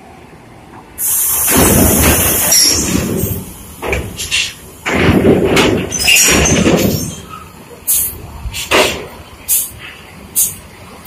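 Bus air brakes and pneumatic doors hissing: a loud blast of air starts suddenly about a second in, followed by a string of shorter hissing bursts.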